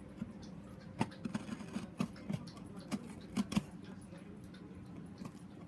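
Packing tape on a cardboard box being slit along its seam with a small hand-held blade: a string of irregular light clicks and scratches, most of them between about one and four seconds in.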